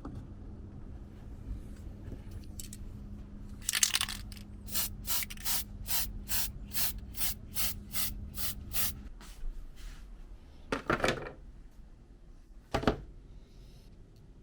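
Aerosol spray paint can sprayed in short, evenly spaced hisses, about three a second, after one longer hiss, with two more hisses later on.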